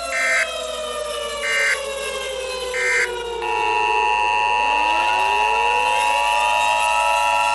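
Emergency Alert System tones: three short, shrill data bursts of the digital alert header, about a second and a half apart, over a warning siren whose pitch falls. About three and a half seconds in, the steady two-tone EAS attention signal starts and the siren winds back up beneath it.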